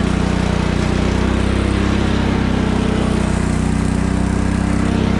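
Cub Cadet riding lawn tractor's engine running at a steady speed as the tractor drives along, with no change in pitch.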